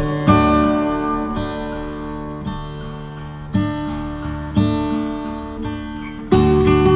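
Background music: acoustic guitar strumming sustained chords, about one strum a second, becoming louder and fuller near the end.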